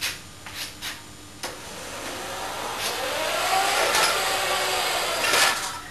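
A motor vehicle passing by, its noise swelling over a few seconds with a tone that rises and then falls, and fading near the end. A few sharp clicks come before it.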